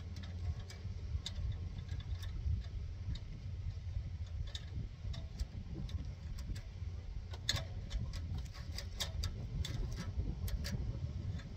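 Irregular light metal clicks and ticks of barbed wire being worked by hand, threaded back through a loop, over a steady low rumble.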